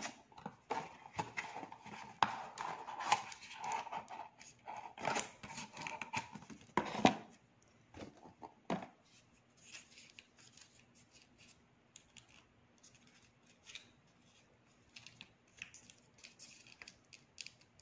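Paper and cardboard packaging rustling and being handled, with many small clicks and taps and a sharp click about seven seconds in; after that only faint occasional taps while a rubber watch strap is handled.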